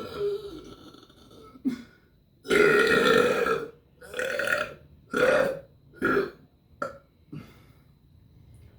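A person burping over and over: a few small burps, then one long loud burp about two and a half seconds in, followed by a quick run of four or five shorter burps that grow smaller toward the end.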